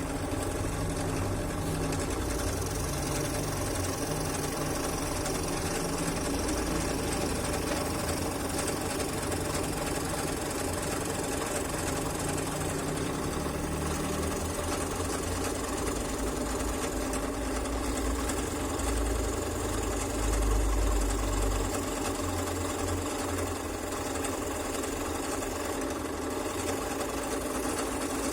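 Scroll saw running steadily, its reciprocating blade cutting a wooden letter pattern, with a brief louder low rumble about twenty seconds in.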